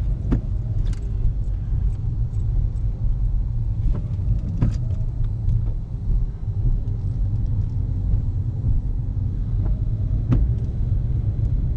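Car engine and road rumble heard from inside the cabin while driving slowly, with a few light clicks and rattles.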